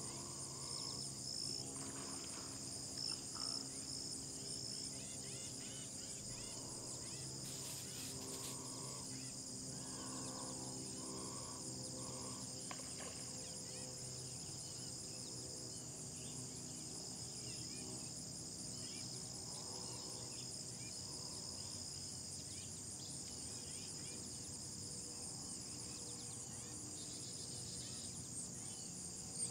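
Outdoor insect chorus: a steady, high-pitched shrill drone with a fast pulsing edge that goes on without a break. Faint scattered calls sit beneath it in the first half.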